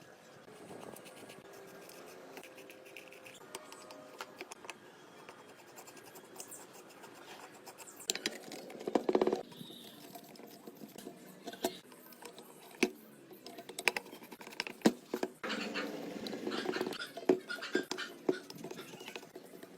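Hand-tool work on a metal saw: scattered taps and clicks, with louder bursts of scraping about eight seconds in and again around sixteen seconds.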